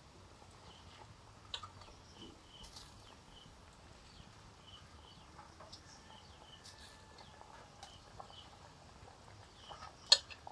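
Soaked basmati rice being added by hand into a large pot of chicken pulao broth: soft wet patters and small clicks. Faint high chirps repeat in the background, and a sharp click comes near the end.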